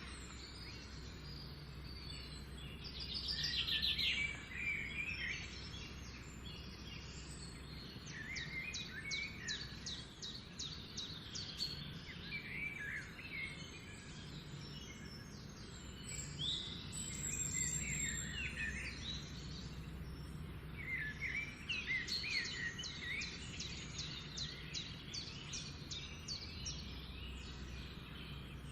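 Several songbirds singing and calling over one another, with repeated fast trills, the loudest about four seconds in. A steady low hum runs underneath.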